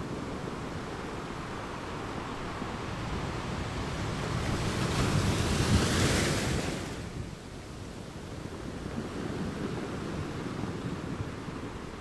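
Steady rush of a waterfall's falling water, swelling louder and brighter for a few seconds in the middle, with wind buffeting the microphone.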